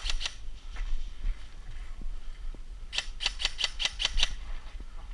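Airsoft gun firing quick strings of sharp shots: a few just at the start, then a run of about eight about three seconds in, roughly six a second.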